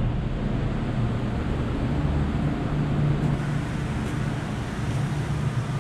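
Supermarket room noise: a steady low droning hum with an even hiss, and no voices standing out.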